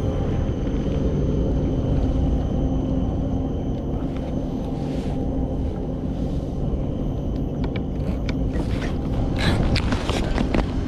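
Steady low rumble of wind on an action camera's microphone out on open water, with water moving against a kayak hull. In the last few seconds comes a run of sharp clicks and knocks as a fishing rod and baitcasting reel are handled.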